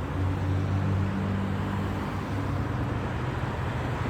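Street traffic at a city intersection: a motor vehicle's engine idling with a steady low hum over the haze of road noise.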